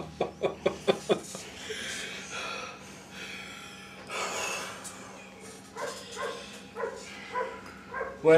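A man's laughter in short rhythmic pulses, tailing off about a second in, followed by breathy snorts and puffs of air with a few short chuckles.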